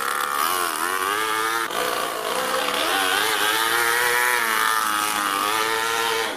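Toyan FS-L200 miniature two-cylinder four-stroke nitro engine running in an RC truck as it drives, its revs dipping and rising several times with the throttle. The sound stops abruptly at the end.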